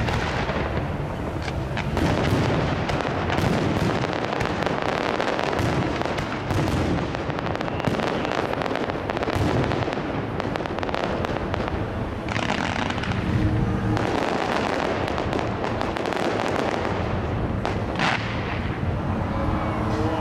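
Fireworks display going off in a continuous barrage: many sharp bangs and cracks one after another over a constant rumbling hiss of launches and bursts.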